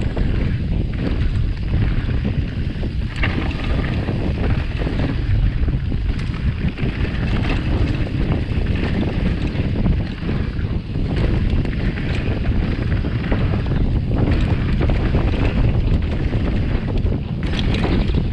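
Wind buffeting the microphone of a mountain bike's onboard camera, a steady low rumble, mixed with the noise and rattle of the bike riding down a dirt enduro trail.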